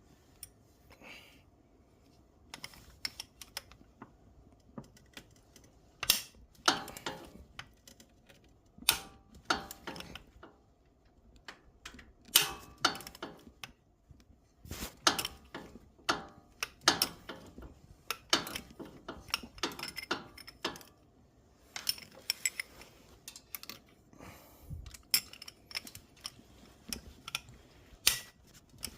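Hand tools working on a Polaris RZR 800 engine during teardown: irregular sharp metal clicks and clinks in short bunches, with pauses between.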